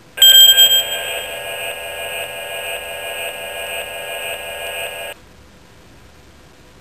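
Star7 handheld prototype's speaker sounding a buzzy electronic tone made of several steady pitches. It opens with a brief flurry of rapid blips, holds steady for about five seconds, then cuts off suddenly. It sounds while a torn-off TV listing is dragged across the touchscreen and stops as the listing is dropped on the agent.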